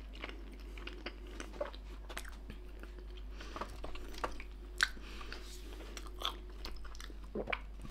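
Toothless man chewing and gumming slices of pork belly, with soft wet mouth smacks and a few scattered clicks.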